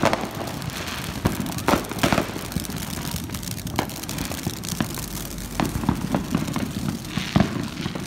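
Neighbourhood fireworks and firecrackers going off: about a dozen sharp pops and bangs at irregular intervals over a constant crackling rumble of more fireworks farther off.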